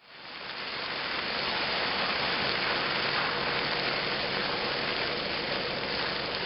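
Steady rushing noise of a large turkey-fryer oil fire burning, the flames fed by hot oil that boiled over when a frozen turkey went in. It rises in over the first second, then holds level.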